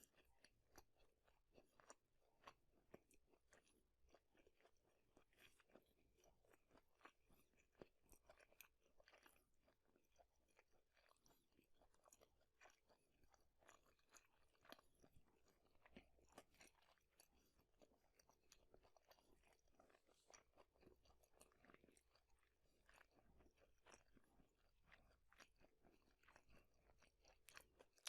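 Quiet, close-miked chewing of fast food, a continuous run of small crunches and crackly mouth clicks.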